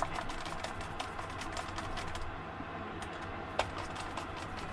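Light, irregular clicking and tapping of small plastic parts being handled, several clicks a second, with one sharper click about three and a half seconds in.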